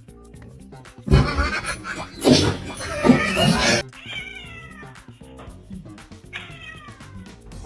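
Cat meowing and yowling: a loud stretch from about a second in to nearly four seconds, then two long meows that fall in pitch.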